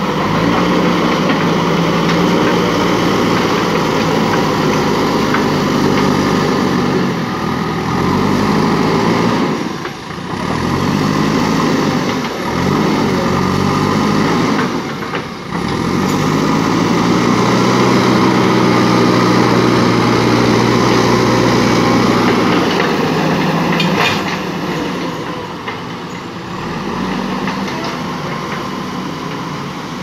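JCB 3DX backhoe loader's diesel engine working under load, its revs dipping and climbing back several times, then held high and steady for several seconds before easing off about three-quarters through. A couple of sharp knocks come as it eases off.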